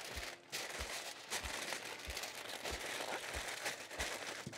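Aluminium foil crinkling and crackling as it is folded and crimped by hand around a rack of baby back ribs to double-wrap them.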